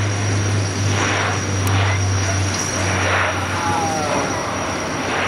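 Bombardier Dash 8-400 (Q400) twin turboprop at takeoff power as it takes off, its six-bladed propellers giving a steady, loud low drone over engine roar.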